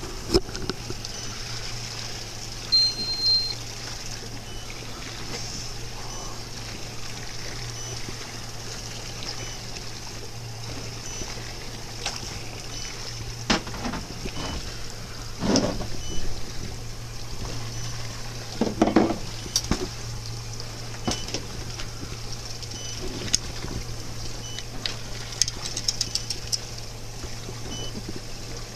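Aboard a small motorboat at sea: a steady low hum with water washing against the hull, faint short beeps repeating every couple of seconds, and a few louder knocks and thumps about halfway through.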